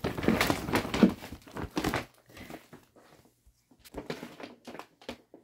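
Plastic bag crinkling and rustling as a cat moves about inside a tote bag, loudest and busiest for the first two seconds, then a few shorter rustles near the end.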